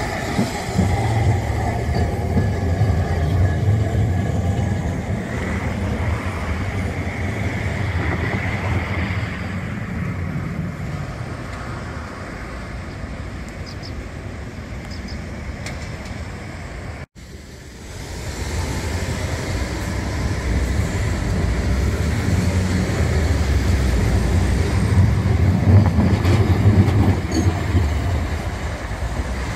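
Kagoshima City streetcars passing close by on street track: a low rumble of wheels and motors, loud in the first several seconds, then fading under road traffic. After a brief dropout the rumble builds again as a second tram passes near the end.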